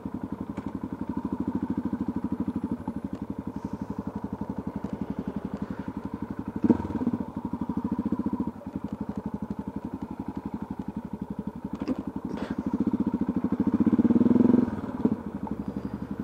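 Motorcycle engine running at low revs as the bike rolls slowly along, with a short rise in revs about two-thirds of the way through before it drops back. A couple of short knocks sound along the way.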